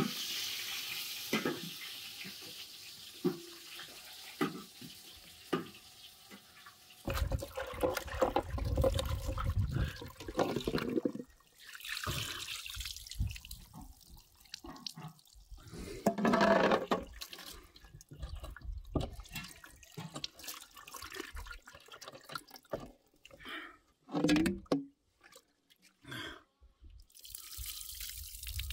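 Water running and trickling from the brass tap of a water tank, splashing onto the ground, with short knocks and clatter scattered through and a few seconds of low rumble about a third of the way in.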